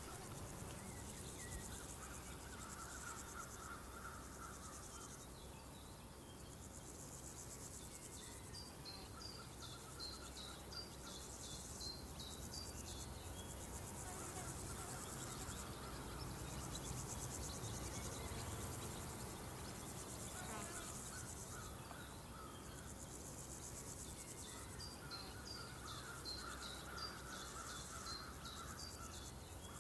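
A steady chorus of insects chirping in a pulsing, rural summer ambience. Short runs of small, higher chirps come twice, about a third of the way in and near the end.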